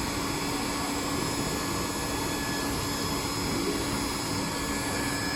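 Blower of a TOP3400C hot-air welding machine running steadily with its heater switched off, cooling down, a constant hum under an even rush of air.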